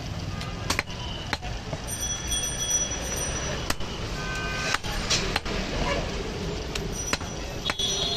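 Heavy butcher's cleaver chopping goat meat and bone on a wooden chopping block: sharp knocks at irregular intervals, about one a second. A steady traffic rumble runs underneath, with a few brief high tones in the middle.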